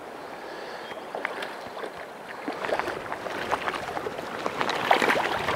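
Water splashing as a hooked trout thrashes at the surface in a shallow stream, over the steady rush of the current; the splashes come irregularly and grow busier and louder from about halfway through.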